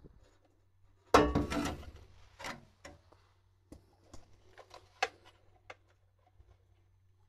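Metal hand tools clinking and rattling at the starter's positive terminal nut: a loud clatter about a second in, then a few scattered sharp clicks and light metal taps.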